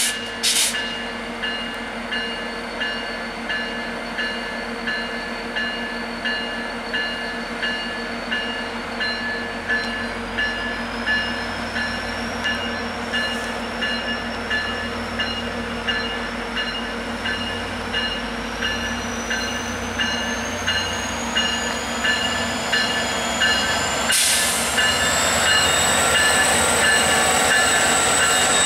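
EMD F40PH-2 diesel locomotive pulling away and passing close by, its bell ringing steadily about one and a half strikes a second. A thin whine from the engine rises in pitch as it throttles up, the rumble grows louder as it draws near, and a short hiss of air comes about three-quarters of the way in.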